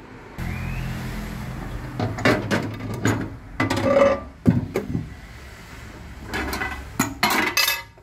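Glass microwave turntable plate clinking and knocking against the oven cavity and roller ring as it is handled: several bursts of sharp clinks over a steady low hum.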